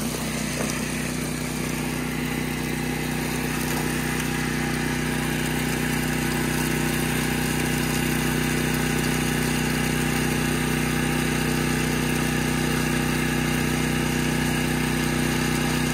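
Portable generator engine running steadily, with a hose stream splashing into a plastic 5-gallon bucket as it fills, slowly growing louder over the first few seconds. The hose is running at full flow from a 1.5 horsepower submersible well pump during a bucket test, about 5 gallons in 18 seconds, roughly 17 to 18 gallons a minute.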